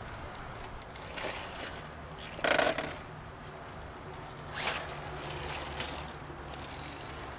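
Radio-controlled rock crawler's small electric motor and geared drivetrain whirring steadily as it creeps up rock, with a few short louder scrapes, the loudest about two and a half seconds in.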